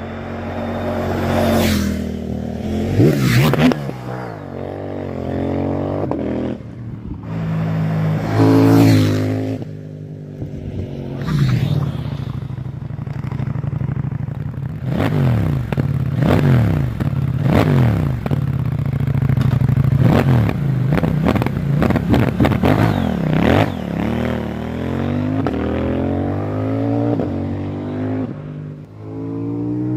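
CFMoto 800NK's 799cc parallel-twin engine being ridden hard, its note climbing and dropping again and again as it accelerates and shifts, with louder passes in the first ten seconds.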